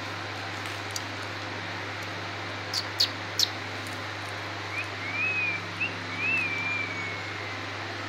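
Three sharp clicks, then a rose-ringed parakeet giving a few soft whistled notes that rise and fall, over a steady background hum.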